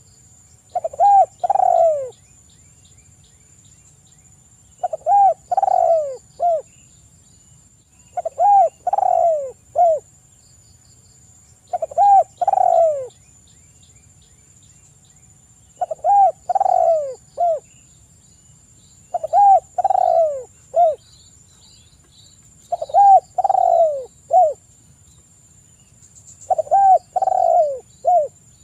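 Spotted dove (tekukur) giving its three-note 'kuk 3' coo, repeated about every three and a half seconds, eight times. Each phrase is a short run of falling notes. A faint steady high whine runs underneath.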